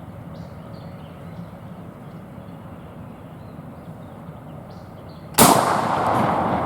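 Quiet outdoor background, then about five seconds in a sudden loud rushing noise that starts sharply and fades slowly.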